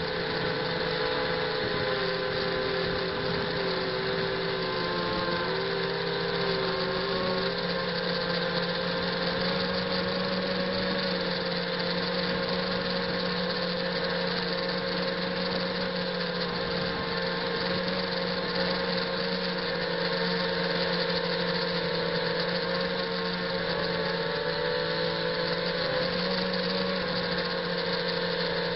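ZMR 250 quadcopter's brushless motors and propellers buzzing in flight, recorded by a camera on the quad's own frame. The buzz holds steady, with its pitch wavering slightly up and down.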